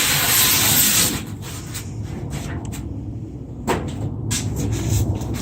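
Cardboard shipping box being handled: a loud rushing scrape in the first second, then uneven rustling and scraping with scattered clicks and a sharp knock about three and a half seconds in.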